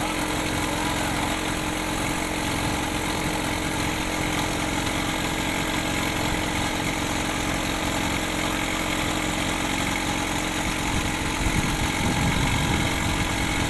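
A boat's engine running steadily at idle, a constant hum that swells slightly near the end.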